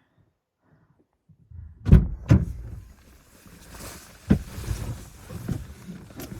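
Wind buffeting the microphone in a snowstorm. After a second and a half of near silence, a low rumble sets in with sharp thumps: two close together about two seconds in, and another a little past four seconds.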